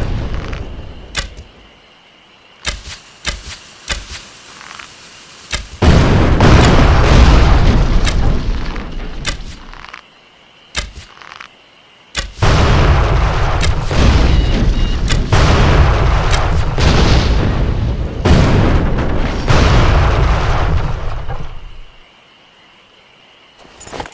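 Bow-and-arrow sound effects: a few sharp clicks and snaps, then loud booming blasts with a deep rumble that carries on for several seconds. The first comes about six seconds in, and a run of them, one on top of another, from about twelve seconds until near the end.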